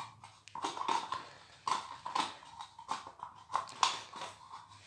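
Thin plastic bottle bottom crinkling and scraping as white cement and water are mixed into a paste in it: a quick, irregular run of rustles and scrapes.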